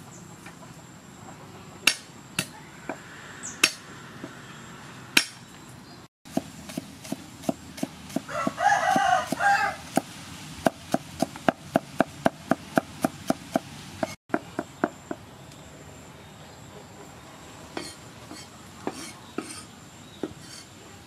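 Cleaver chopping garlic on a wooden chopping board: scattered sharp knocks, then an even run of about three strokes a second from about six to fifteen seconds in. A rooster crows once in the middle of the chopping.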